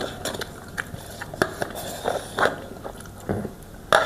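Close-miked eating sounds: a person biting and chewing food, with irregular wet clicks and smacks of the mouth.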